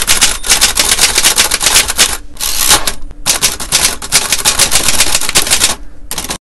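Typewriter keys clacking rapidly as a sound effect for text being typed out, with short pauses and a brief rushing hiss about two and a half seconds in. The sound cuts off abruptly at the end.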